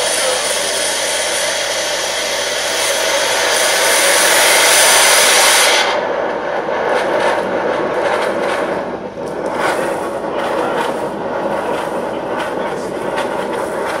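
Steam jetting at high velocity from an open vent pipe on an oil-fired Weil-McLain steam boiler: a loud, steady hiss. About six seconds in, the highest part of the hiss cuts off suddenly, and a rougher, unsteady rush of steam carries on.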